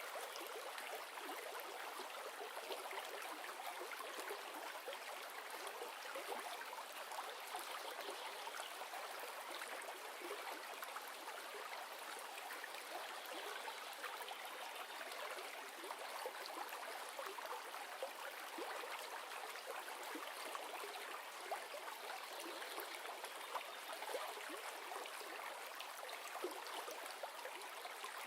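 A river running steadily, a continuous rushing and trickling of flowing water with no low rumble.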